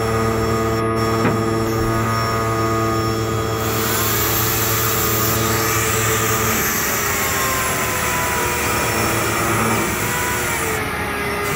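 A corded electric saw runs continuously as it cuts through a whole yellowfin tuna. Its motor tone shifts in pitch as the blade works through the fish, with a change in the sound about six and a half seconds in.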